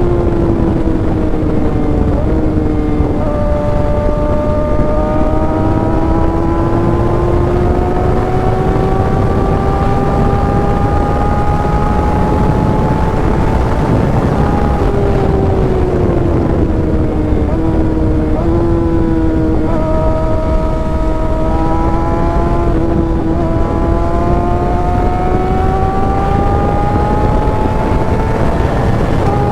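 Kawasaki ZX-6R inline-four engine pulling at steady road speed. Its pitch climbs slowly and sags, with a few quick gear changes that make it step, over a loud rush of wind and road noise.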